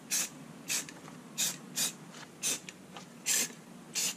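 Aerosol spray-paint can (rattle can) fired in short hissing bursts, about seven in four seconds, dabbing camouflage spots through a paper stencil.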